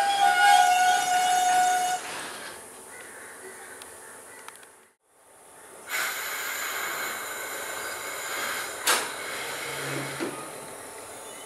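Train horn sounding a held, multi-tone blast that stops about two seconds in, followed by the steady running noise of the train at the platform, with a sharp knock later on.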